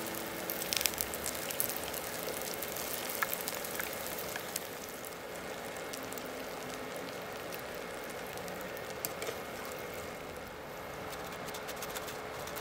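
Tofu-and-tapioca dough sticks deep-frying in hot oil: a steady sizzle with scattered crackles and pops, busiest in the first few seconds.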